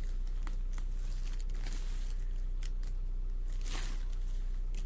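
Light rustling of a clear plastic garment bag and embroidered fabric being handled, with a short crinkle about four seconds in, over a steady low hum.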